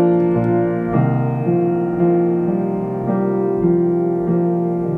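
Background piano music: a slow run of sustained notes, a new note struck every half second to a second.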